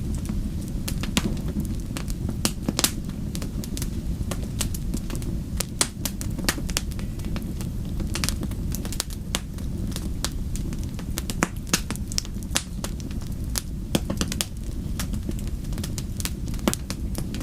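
Fireplace fire crackling: many irregular sharp pops and snaps over a steady low rumble of the flames.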